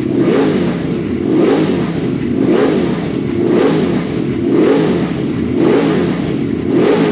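Motorcycle engine through a Termignoni aftermarket exhaust, revved in quick blips about once a second, each rev rising and dropping back to idle.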